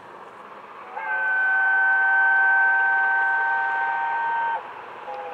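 Peppercorn A1 steam locomotive 60163 Tornado sounding its whistle. One long, steady blast of several notes together starts about a second in and cuts off sharply. Another blast begins near the end.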